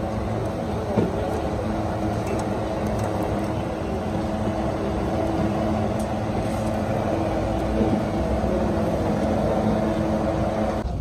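Steady mechanical hum of a running motor, with a few constant low tones, under general outdoor street noise.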